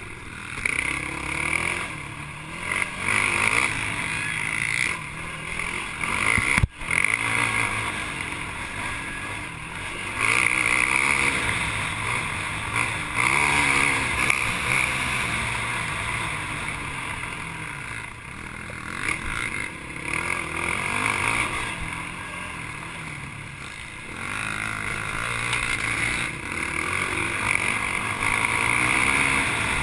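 ATV engine under racing load, revving up and easing off again and again with the throttle as the quad rides over rough dirt trail. The sound is picked up close by a camera mounted on the machine. There is a single sharp knock about seven seconds in.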